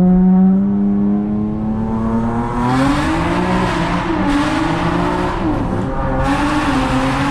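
Tuned 400 hp Honda Accord engine pulling hard on a wet road: its pitch holds steady at first, then climbs and wavers up and down, with repeated stretches of hissing noise over it in the second half.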